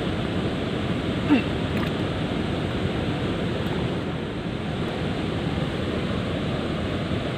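Steady rush of river water spilling over a weir, with one short rising squeak about a second in.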